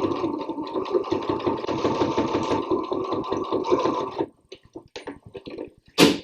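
Sewing machine stitching steadily at a fast even rate as the loop side of hook-and-loop tape is sewn down onto a fabric cord keeper, stopping about four seconds in. A single sharp knock near the end.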